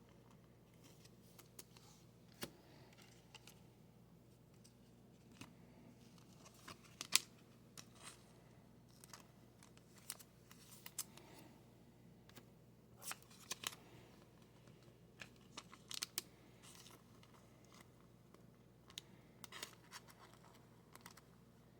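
Faint, scattered rustles and small clicks of trading cards and their packaging being handled and shuffled, in short irregular bursts.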